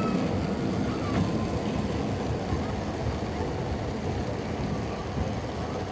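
Hill Train funicular car running along its rails with a steady low rumble.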